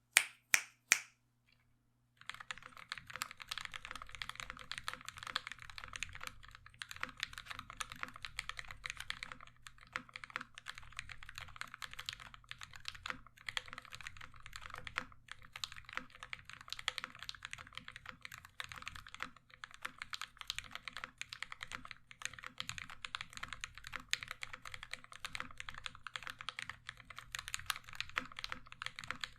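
Three loud sharp clicks, then from about two seconds in continuous fast typing on a Dolch.CR mechanical keyboard with lubed and filmed Durock Mauve linear switches, GMK ABS keycaps and an aluminium plate.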